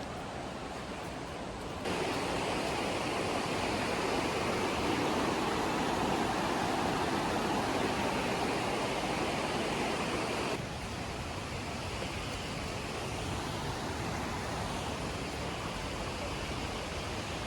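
Rushing water in a mountain gorge, a steady hiss that jumps louder about two seconds in and drops back down a little after ten seconds.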